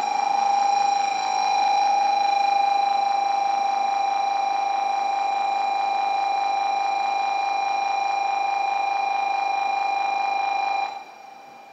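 Electronic departure bell on a Shinkansen platform, ringing as one steady, rapidly trilling tone that cuts off suddenly about eleven seconds in.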